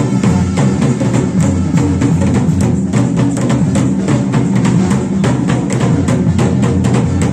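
Music with drums and percussion playing a steady, fast beat.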